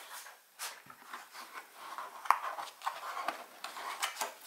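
Hands opening a knife's presentation box and handling the packaging inside: light rustling with scattered small taps and clicks, the sharpest one about two seconds in.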